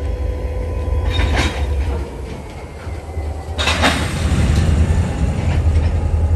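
Freight cars rolling slowly past on the rails with a steady low rumble of wheels on track, broken by two short metallic noises from the wheels or car couplings, one about a second in and one just past halfway.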